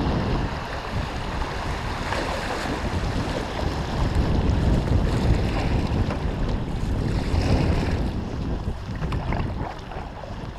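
Rushing water of shallow river riffles around an open canoe, under heavy wind buffeting on the microphone; it eases a little near the end.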